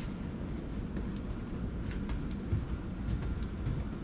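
A steady low rumble with faint taps of footsteps climbing hard stair treads, about one every half second.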